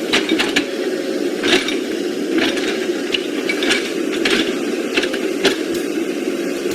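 Small electric motor and plastic gearbox of a radio-controlled model vehicle running with a steady whirr, with irregular clicks and rattles over it.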